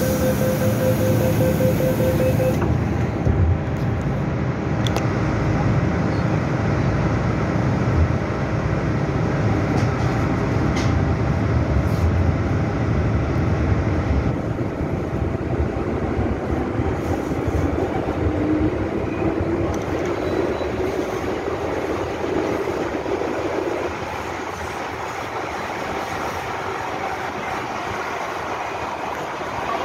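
MTR Tsuen Wan Line M-train: a repeated beeping tone at the start, then the train pulls out and accelerates with a rising motor whine, settling into a steady running rumble in the tunnel.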